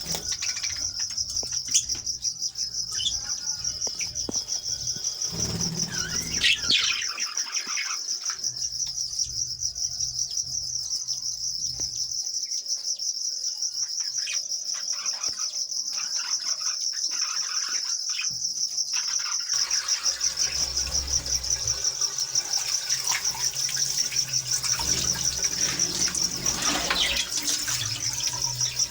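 Crickets chirping in a continuous rapid high trill, with a few bird calls from small parrots now and then. A low steady rumble joins about twenty seconds in.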